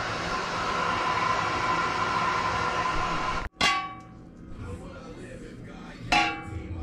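A steady hiss, then the lid of a speckled black enamelware (graniteware) pot clanging twice against the pot with a short metallic ring: once a little past halfway and again near the end.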